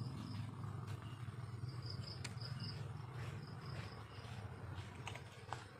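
Night insects, crickets, chirping in short repeated high pulses over a steady low hum, with a few light clicks.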